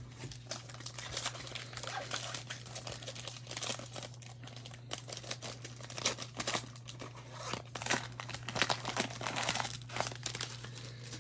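Foil trading-card pack wrapper crinkling and being torn open, with irregular crackles as the pack is handled. A steady low electrical hum runs underneath.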